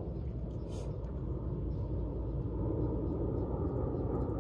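Golf cart riding along, a steady low rumble of its running and tyres that grows slightly louder near the end.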